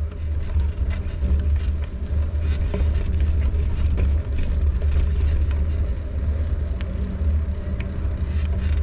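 Bicycle rolling along a paved path, heard through a handlebar-mounted camera: a steady deep rumble of wind and tyre vibration on the mount, with scattered small clicks and rattles.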